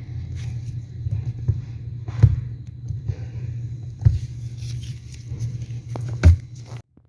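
Clicks and knocks of a brake light switch being twisted into its bracket under the brake pedal and adjusted, over a steady low hum. There are three sharper knocks, about two, four and six seconds in, and the sound cuts off suddenly near the end.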